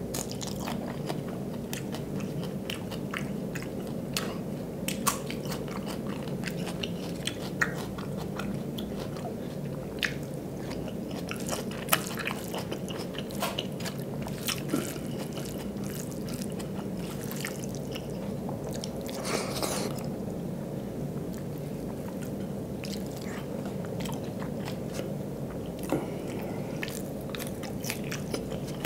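Close-miked mouth sounds of a man eating rice and dal by hand: chewing and wet lip smacks, with frequent short sharp clicks. A steady low hum runs underneath.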